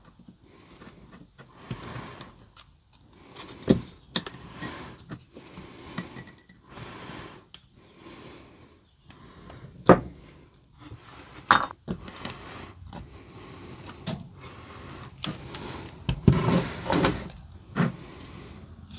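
Irregular clicks, taps and light scraping of plastic and metal as the circuit board of an opened Milwaukee M18 battery pack is desoldered and pulled off. Sharp clicks come every few seconds, with a busier run of knocks near the end.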